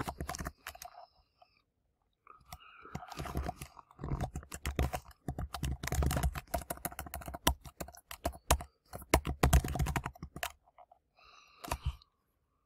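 Typing on a computer keyboard: runs of quick keystrokes, with a pause of about two seconds near the start and a short pause near the end.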